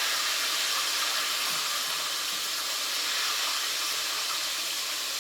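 Chicken strips frying in hot grease in a skillet, giving a steady, even sizzle.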